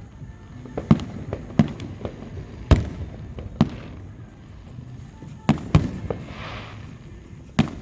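Aerial fireworks exploding: a string of about seven sharp booms at uneven intervals, two of them in quick succession, with a crackling hiss after the middle of the run.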